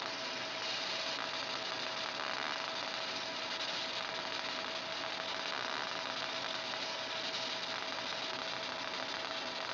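Fiber laser marking machine running while it engraves an aluminium plate: a steady hiss and hum with one constant tone through it.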